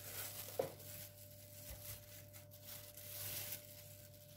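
Thin plastic bag crinkling and rustling as it is peeled off a chilled cake, with a brief tap about half a second in.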